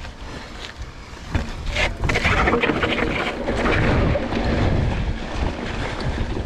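Mountain bike descending a rough dirt and rock trail: knobby tyres rolling over dirt and stones, the bike rattling over bumps, and wind rushing over the camera microphone. It gets louder from about two seconds in.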